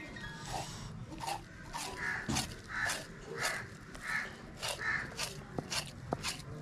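A bird calling five times in an even series, about one call every two-thirds of a second, over the faint sounds of a knife scoring a whole rohu fish on a wooden block. A couple of sharp taps come near the end.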